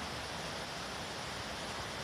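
Steady, even rushing outdoor ambience with no distinct events.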